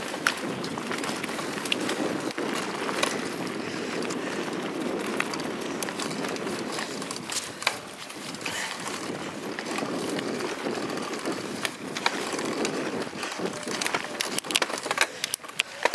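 Mountain bike rolling fast over a dirt singletrack, heard through a camera mounted on the bike: a steady rumble of tyres on the trail with frequent rattles and knocks, busier near the end.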